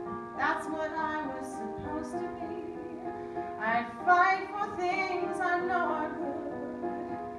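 A woman singing, accompanied on an electronic keyboard. Held chords sit under her sung phrases.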